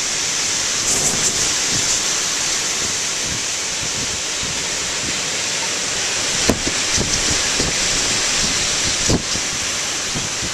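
Hurricane wind blowing hard and steadily with a constant hiss, gusts buffeting the microphone in low thumps, the strongest a little past halfway and again near the end.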